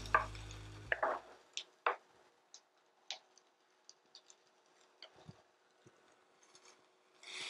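Background music fading out in the first second or so, then faint, scattered clicks and taps of a wooden spoon stirring diced onions in a cast iron skillet.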